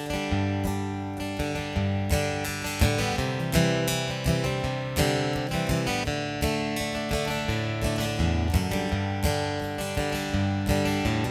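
Solo acoustic guitar strummed in a steady rhythm, playing the instrumental intro of a country-folk song before the vocal comes in.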